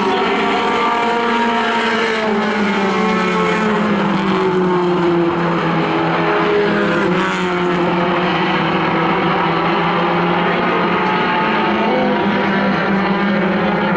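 A pack of four-cylinder stock cars racing together, many engines running hard at once, their overlapping pitches rising and falling as the cars lift and accelerate through the turns.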